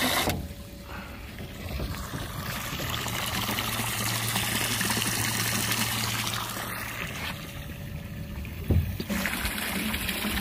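Water running and splashing from a livewell's plumbing: the fill fitting pouring into the nearly full aluminum tank, and the overflow jetting out of a through-hull fitting into the lake, the overflow draining the tank faster than it fills. A low hum for a few seconds in the middle and a single dull thump near the end.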